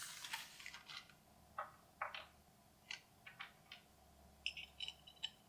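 Small parts being screwed in by hand: scattered light clicks and scrapes, with a few brief high squeaks near the end.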